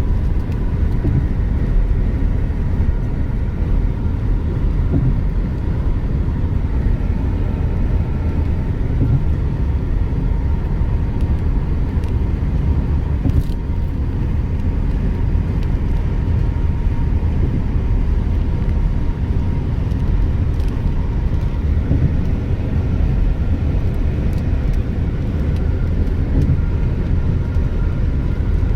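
Steady road noise inside a moving car's cabin: a low rumble of tyres and engine on a rain-wet road.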